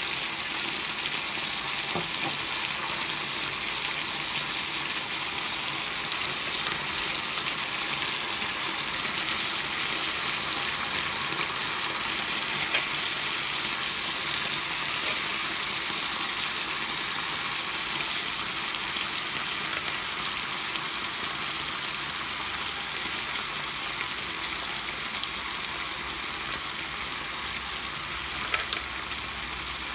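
Teriyaki sauce with chicken and vegetables sizzling steadily in a hot electric pan, with a few light clicks of metal tongs as pieces are lifted out, the most prominent near the end.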